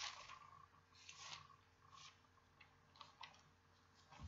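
Near silence, with a few faint scattered clicks and rustles.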